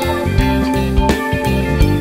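Instrumental background music with guitar over a steady drum beat.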